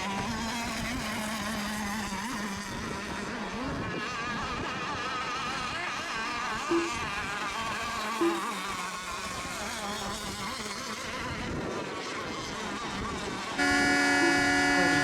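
Several radio-controlled racing boat engines buzzing and revving on the water, their pitches wavering up and down. Near the end a loud, steady horn sounds for about a second and a half.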